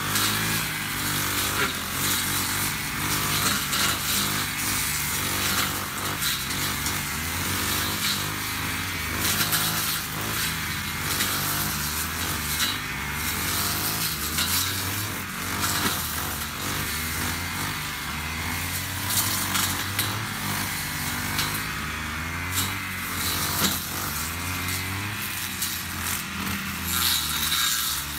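Honda UMK450T brush cutter's GX50 four-stroke engine running under load as its two-tooth blade cuts through tall grass, the engine pitch rising and falling every few seconds with the throttle.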